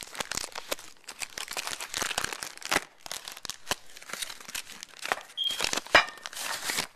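Packaging being torn open and handled by hand: irregular crinkling and tearing, with a sharp louder crackle about six seconds in.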